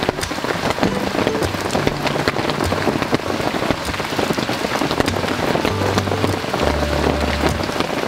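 Heavy rain falling steadily, pattering on surfaces with a dense scatter of sharp drop hits.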